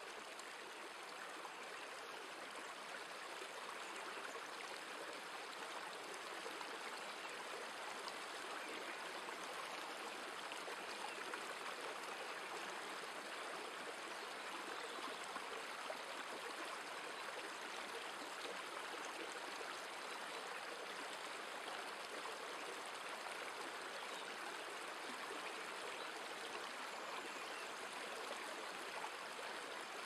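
Waterfall rushing steadily, an even hiss of falling and splashing water.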